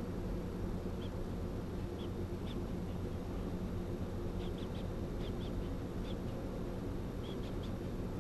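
Steady low hum with faint, short high-pitched chirps scattered through it, several in quick clusters about halfway in and near the end.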